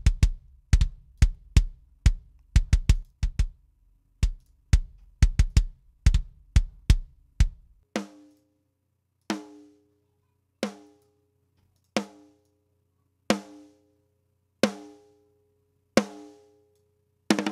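A solo kick-drum track plays a quick, uneven pattern, about three deep hits a second, through heavy drum compression. About eight seconds in it gives way to a solo snare-drum track, one ringing hit about every 1.3 s, compressed hard in the plugin's slow-attack Grab mode, which lets the attack of each hit through.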